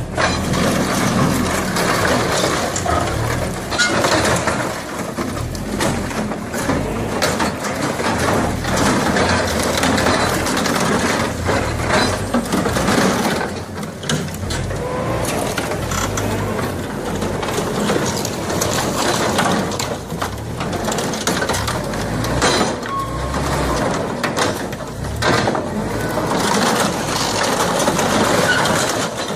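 Heavy construction machinery at work: an engine running under a dense, continuous clatter of knocks and scraping.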